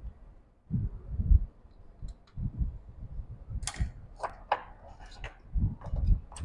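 Small sharp clicks and scrapes of screws and a screwdriver on a MacBook Pro laptop being screwed back together, bunched a little past halfway, among dull low thumps from handling the laptop on the bench.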